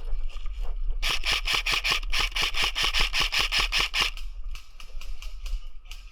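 Airsoft rifle firing a rapid string of shots, about six or seven a second, starting about a second in and tapering off near the end, with wind rumbling on the microphone underneath.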